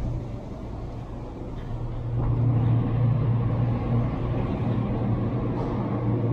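City street traffic: a motor vehicle's engine gives a steady low rumble over general traffic noise, growing louder about two seconds in.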